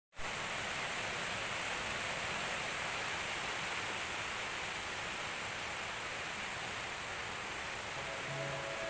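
Steady, even hiss with no rhythm or tone. Faint music fades in near the end.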